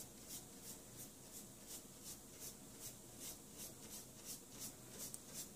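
Stiff-bristled paintbrush dabbing acrylic paint onto paper in quick short strokes, a faint scratchy brushing about three times a second.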